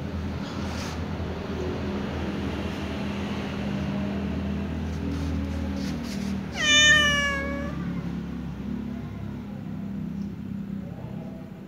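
Ginger kitten giving one loud meow about six and a half seconds in, dipping slightly in pitch and then holding, over a steady low hum; a couple of much fainter calls follow near the end.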